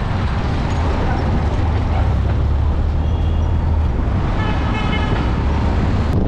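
Riding in an open-sided leguna through city traffic: the vehicle's engine runs with a steady low hum under road and wind noise. A vehicle horn honks briefly about three seconds in, then again for about a second near the five-second mark.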